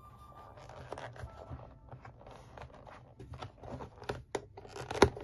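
Old leather pistol holster for a Type 14 Nambu being handled: the stiff leather flap and strap rustle and scrape under the fingers, with scattered small clicks and a sharper click near the end.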